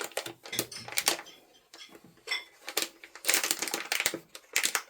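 Packaging being handled: a quick, irregular run of crinkles and clicks as a boxed collectible is turned over and opened.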